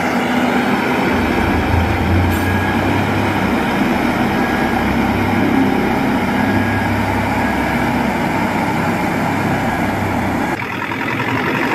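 Volvo DD90C double-drum road roller's diesel engine running loudly and steadily as the machine drives, with a low hum that drops away about ten and a half seconds in.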